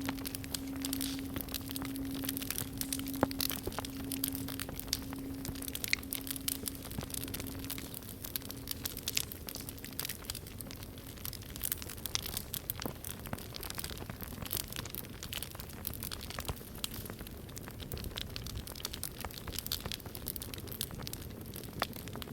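Wood fire crackling and popping with sharp clicks throughout, under the low ring of a singing bowl that fades away about ten seconds in.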